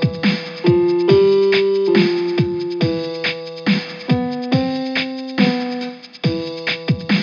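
Electronic instrumental music: sustained keyboard chords that change every second or so, over a drum-machine beat with a deep kick about twice a second. It thins out briefly near the end.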